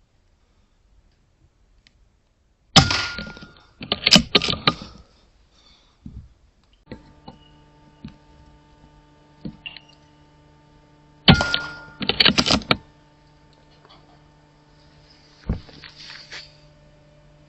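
Two shots from a .22 Airmaks Krait L PCP air rifle, about eight seconds apart, each a sharp thunk with a brief ring. About a second after each comes a quick run of mechanical clicks as the action is cycled to load the next pellet. A steady low hum sets in partway through.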